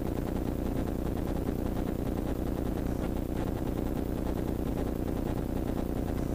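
Off-road race vehicle's engine idling steadily, heard from inside the roll-caged cab.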